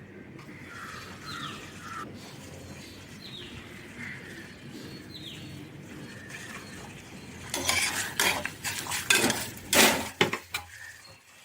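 Birds chirping in the background with short falling calls. About seven and a half seconds in, metal kitchen utensils clink and clatter against a pot or cup for about three seconds, a quick run of sharp strikes, as in stirring or handling the tea vessels.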